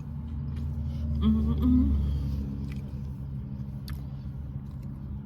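Steady low rumble of a car's idling engine heard from inside the cabin, with a short hummed "mmm" about a second in and a few faint clicks later on.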